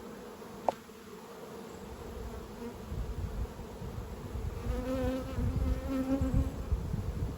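Honey bees humming steadily around an open hive, with one bee buzzing loudly close by for about two seconds past the middle. A single sharp click sounds under a second in.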